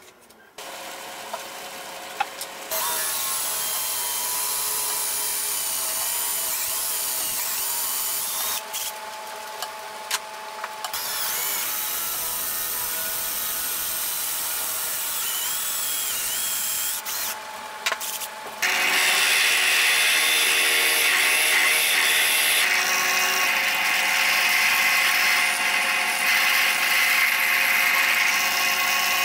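Electric drills boring holes in wood. A hand drill's motor whine wavers under load and stops briefly twice. From about two-thirds of the way in, a louder, steady drill press runs.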